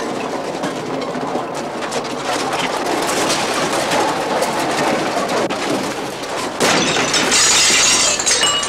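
Clattering commotion, with a louder crashing burst about two-thirds of the way through.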